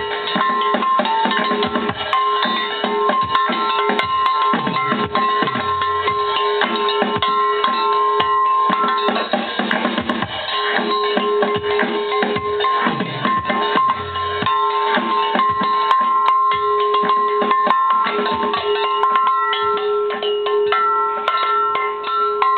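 Band music: a drum kit played under long held keyboard notes, with guitar.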